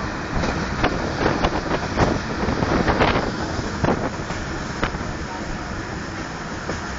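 Passenger train running at speed, heard from on board: a steady rush of wind and running noise with scattered sharp clacks of wheels over rail joints during the first five seconds or so, then a steadier rush.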